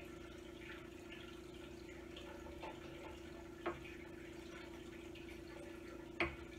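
Scissors cutting through a cotton T-shirt: faint snipping with a few sharp clicks of the blades closing. A steady hum runs underneath.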